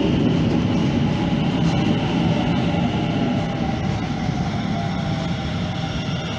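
Steady low rumble of city traffic, with a faint engine whine that sinks slightly in pitch in the second half.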